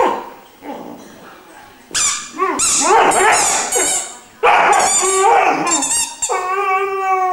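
Three-month-old Irish wolfhound puppy singing: a run of high whines and yowls starting about two seconds in, then a long held howl that drops in pitch at the end.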